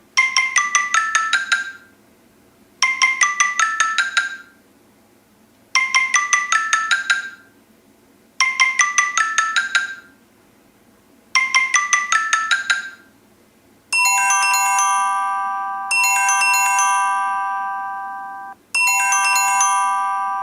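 Stock Samsung Galaxy S6 Edge Plus ringtones: a quick run of bright, marimba-like notes that climbs and falls back, repeated five times with short pauses. About 14 seconds in a different tone takes over, with held bright chords struck three times, each slowly fading, and cut off near the end.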